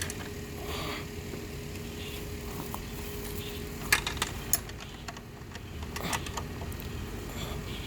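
Light metallic clicks and clinks of a wrench working on wheelbarrow bolts: three quick ones about four seconds in and another about six seconds in, over a faint steady hum.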